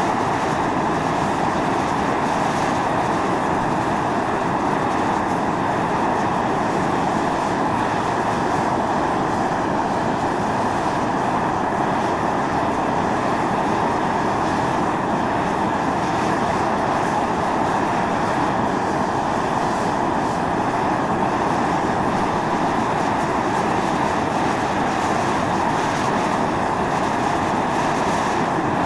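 Volcanic fumarole vents on Mt. Io (Atosanupuri) jetting steam and sulphurous gas in a steady, continuous hiss.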